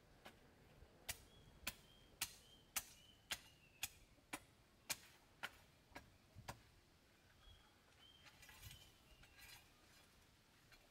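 About eleven sharp knocks in a steady rhythm, roughly two a second, fading after about five seconds in, with faint short high chirps in between.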